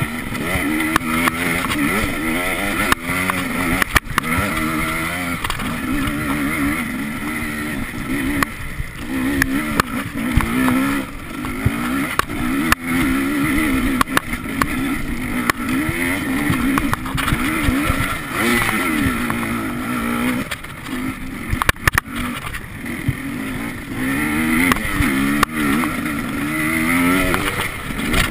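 Enduro motorcycle engine heard from the bike itself, revving up and dropping back over and over as the rider accelerates, shifts and backs off along a dirt trail. Occasional sharp knocks come through over the engine.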